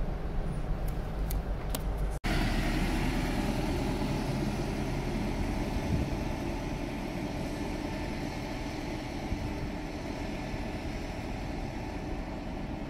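Isuzu Erga city bus, first heard inside the cabin with the engine running and a few sharp clicks. About two seconds in, the sound switches abruptly to outside as the bus pulls away, its diesel engine and tyre noise slowly fading as it recedes.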